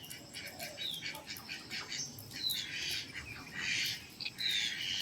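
Birds calling: about three short, high whistled notes that fall in pitch, spread across the stretch, over a faint steady hiss.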